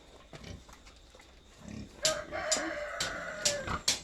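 A rooster crows once, starting about halfway in and lasting nearly two seconds. Several sharp knocks sound over the crow.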